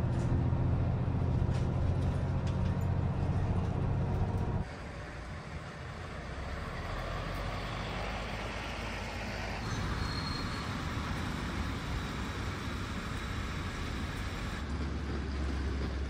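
A bus engine hums steadily while the bus drives, heard from inside the cabin near the front. After about four and a half seconds this gives way to street traffic noise at a bus stop, with a bus pulling past.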